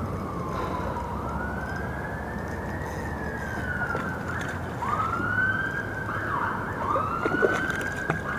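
Emergency vehicle siren wailing, its pitch rising and falling in repeated sweeps, slow at first and quicker from about halfway through.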